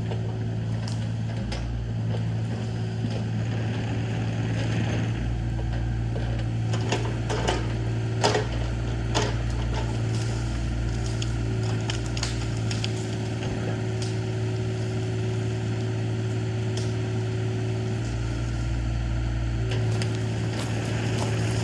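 Engine of a piece of heavy equipment running steadily, its low rumble shifting a little with load, with a few sharp knocks about a third of the way through.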